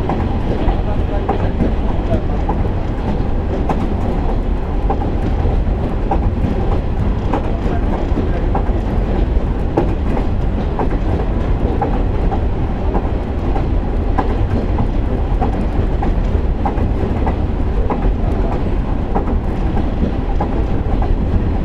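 JR KiHa 147 diesel railcar running along the line: a steady low rumble of engine and wheels, with a click from the wheels crossing rail joints every second or two.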